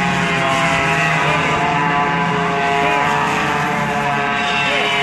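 Racing go-kart engines running on the circuit, several engine tones at once that rise and fall in pitch as the karts accelerate and lift off.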